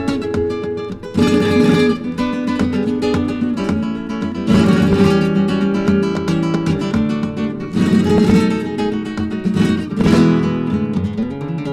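Flamenco acoustic guitar music played from a vinyl record, with plucked notes under sustained tones and a loud strummed chord about every three seconds.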